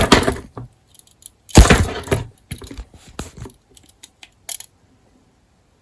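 Small hard objects clicking, knocking and clinking as a G10-handled pocket knife is handled, in an irregular run that stops about three-quarters of the way through.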